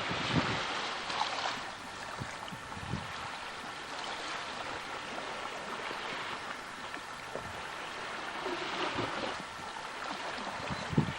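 Water rushing and splashing steadily, with wind gusting on the microphone now and then.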